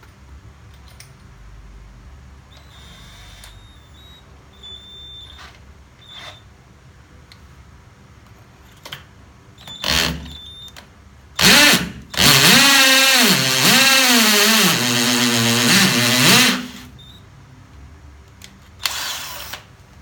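Cordless DeWALT DCD700 36V drill with a 775 brushless motor drilling into concrete with a masonry bit. After a short burst about 11 seconds in, it runs loudly for about four seconds, its whine rising and falling in pitch as the trigger and load vary.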